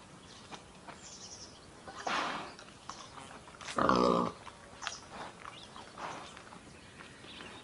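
A pig grunting twice, a short grunt about two seconds in and a louder one about four seconds in, as it roots at the ground with its snout.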